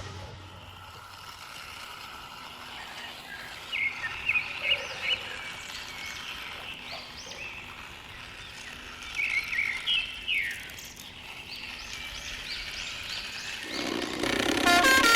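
Birds chirping in two short spells of quick chirps and falling notes over a quiet, steady outdoor background. Near the end a louder, steady sound with pitched tones comes in.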